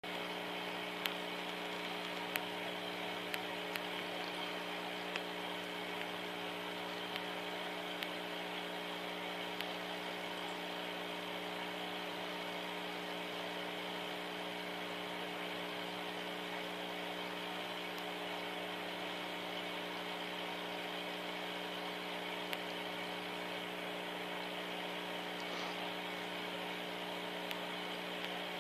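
Steady mechanical hum made of several even tones over a constant hiss, with a few faint clicks, most of them in the first ten seconds.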